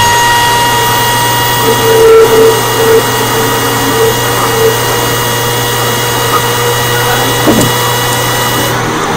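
Supercharged engine of a 2016 Audi S4 with a stage 1 tune and an aftermarket intake, heard close up: a steady supercharger whine over loud intake rush at an unchanging engine speed. Near the end the high whine and hiss drop away suddenly.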